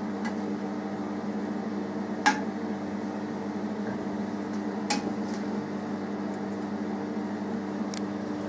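A metal slotted spoon clinking against an enamel pot and plate a few times as boiled potatoes are lifted out of the water, over a steady low hum.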